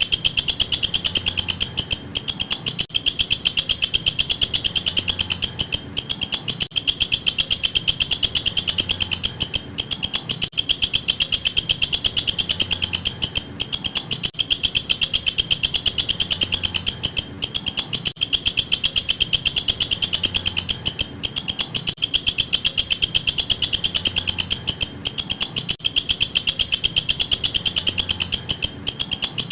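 Walang kecek, a singing katydid, calling: a loud, shrill, fast-pulsed ticking trill, broken by short pauses every couple of seconds.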